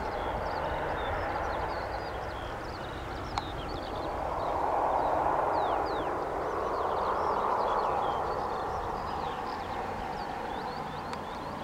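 Distant jet aircraft engine noise, a steady rush that swells twice, with small birds chirping throughout.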